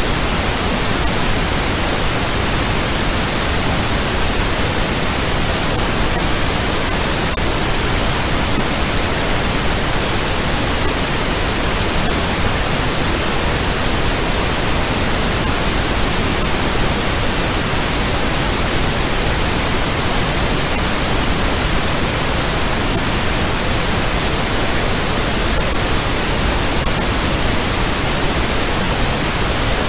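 Steady, loud, unchanging hiss of a generated noise track, even across deep and high pitches with no tones or events in it.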